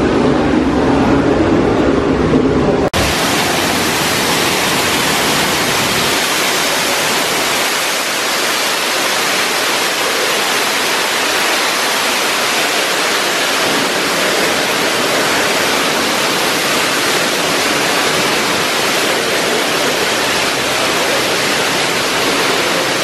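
Steady, even rushing of falling water from an indoor waterfall feature. It begins abruptly about three seconds in, replacing a lower rumble.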